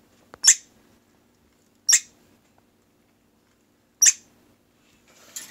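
Young red squirrel barking: three short, sharp high-pitched barks about a second and a half to two seconds apart.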